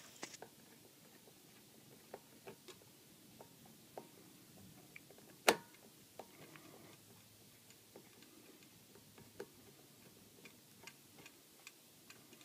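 Faint, scattered small clicks and ticks of a screwdriver working screws out of a ceiling fan's metal switch housing cover, with one louder click about five and a half seconds in.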